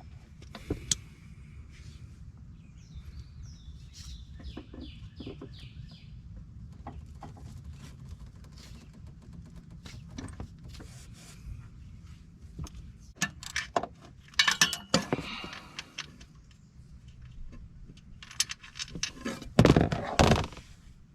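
Scattered metallic clinks and clatter from hand tools and parts during work on a car, with louder bursts of clatter about two-thirds of the way through and near the end. A bird sings a short run of repeated chirps early on.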